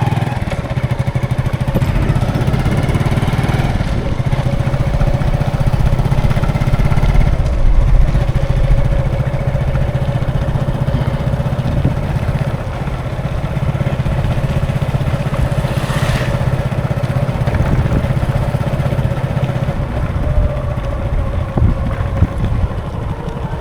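Road traffic with vehicle engines running close by: a steady low engine hum and a steady whine, with one short sharp noise about two-thirds of the way through.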